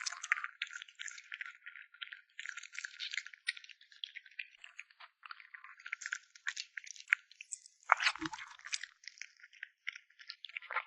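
Crunchy chewing: a dense run of rapid, crisp clicks and crackles, with a short low thump about eight seconds in.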